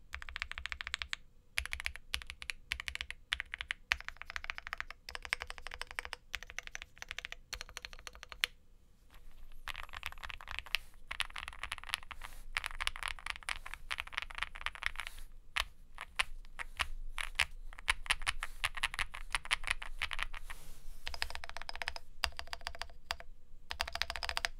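Typing on an Owlab Spring Alice-layout mechanical keyboard with lubed C3 Banana Split linear switches, an FR4 plate and GMK keycaps: fast runs of key clacks in bursts, broken by a few brief pauses.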